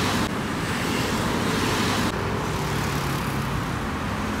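Road traffic on a multi-lane road: cars and motorcycles passing, a steady rush of tyres and engines.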